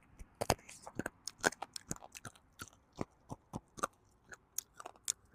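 Close-up chewing and crunching of meat on the bone with small bone fragments: irregular sharp crunches and mouth smacks, a few each second.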